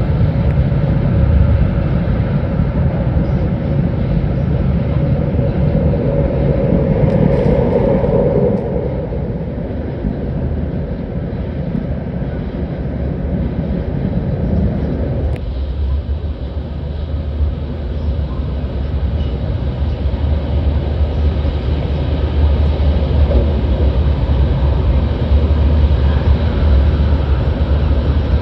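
Sanyo Shinkansen bullet train running at speed through a tunnel, heard from inside: a loud, steady rumble of wheels, rails and air, whose tone shifts about a third of the way in and again suddenly about halfway.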